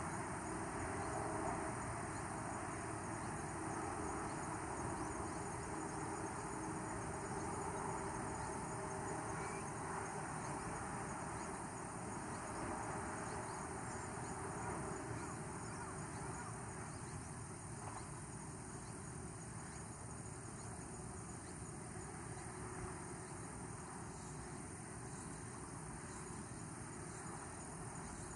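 Insects trilling steadily and high-pitched, over an even background hiss that slowly gets quieter.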